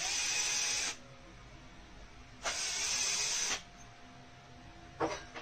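Cordless electric screwdriver running in two bursts of about a second each, undoing screws to remove the power-board MOSFETs. A short click near the end.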